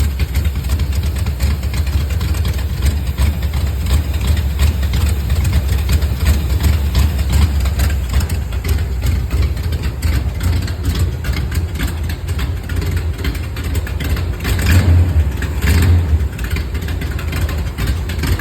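Chevrolet 350 small-block V8 idling with a choppy idle and a fast ticking running through it. The ticking is the weird noise the owner cannot identify. The engine swells louder briefly twice near the end.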